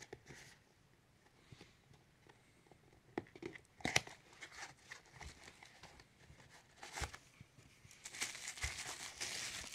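Hands handling a small cardboard box, with scattered taps and knocks and a sharper knock about four seconds in, then a clear plastic bag crinkling from about eight seconds in.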